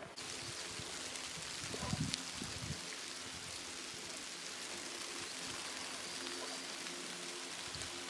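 Steady hiss of water, with a few dull low thumps about two seconds in.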